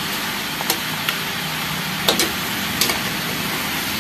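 Sliced pork intestines sizzling steadily in a metal wok while a metal spatula stirs them, with several short scrapes and knocks of the spatula against the pan.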